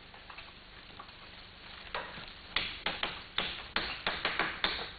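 Wooden knocking and clacking from a wooden hand loom being handled and set up. A few faint clicks come first, then from about two seconds in a quick run of sharp knocks, about three or four a second.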